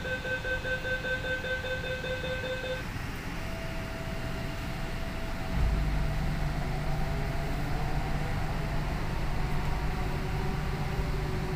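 Kolkata Metro train: a steady electronic beeping tone sounds for the first few seconds and stops. About five seconds in, the train starts moving with a low rumble and a faint rising motor whine.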